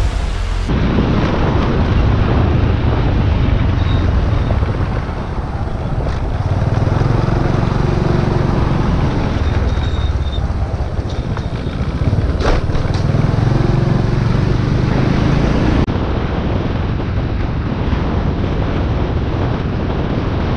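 Wind rushing over the microphone of a camera on a moving vehicle, with a low engine drone underneath that swells and eases as the vehicle travels along a road.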